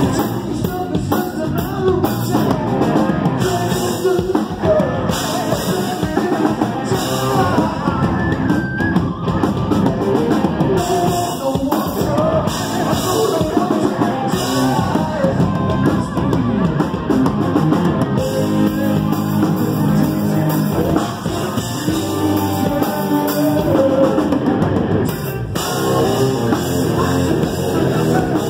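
A live rock band playing loud, with a drum kit, electric guitar and a singer's vocals through the PA.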